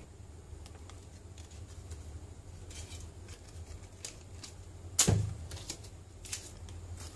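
Handling noise at a workbench: light scattered clicks and taps as a thin steel reballing stencil is laid down on tissue among small metal parts, with one sharp knock about five seconds in. A low steady hum sits underneath.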